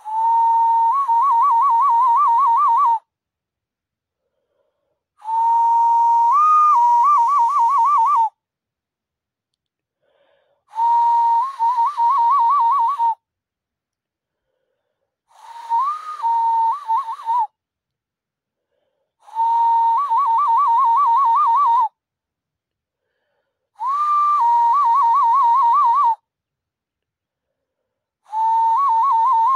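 Hand whistle blown into cupped hands. Each call is a steady tone that breaks into a quick, even warble, and the call is repeated seven times with short silent gaps between.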